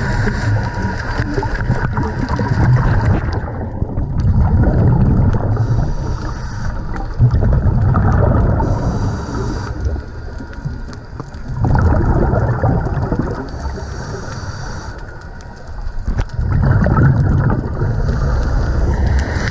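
Scuba divers breathing through their regulators underwater: exhaled bubbles rumble in surges every few seconds, with quieter stretches between, muffled as heard through an underwater camera housing.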